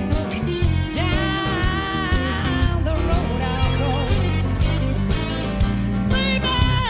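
Background music: a song with guitar and singing over a steady beat.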